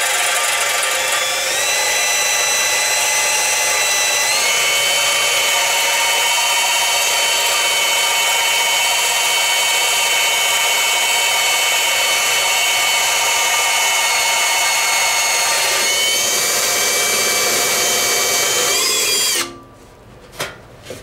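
DeWalt power drill spinning an extra-long drill bit, boring a pilot hole at an angle through a motorcycle fender from the inside. The motor whine steps up in speed twice in the first few seconds, holds steady, then slows and stops near the end, followed by a few light clicks.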